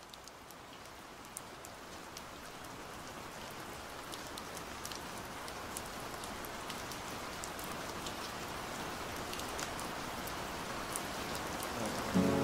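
Steady rain fading in and growing gradually louder, with scattered single drops ticking sharply over the hiss. An acoustic guitar comes in right at the end.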